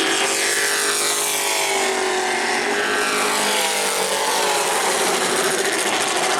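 Several Pro Truck race engines running hard on a short oval, their notes overlapping, some falling in pitch as trucks pass.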